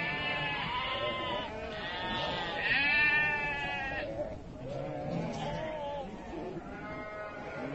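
A flock of sheep bleating, many calls overlapping one another, the loudest about three seconds in.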